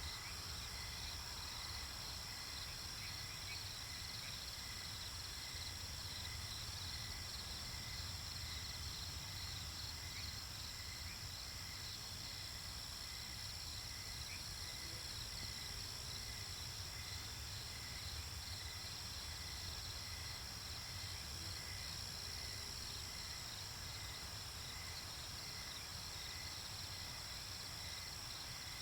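Night ambience of crickets and other insects chirping: a continuous high trill with regular, evenly spaced chirps beneath it, over a low steady rumble.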